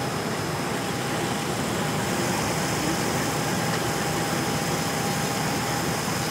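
Steady mechanical running noise with a constant high whine, unchanging throughout.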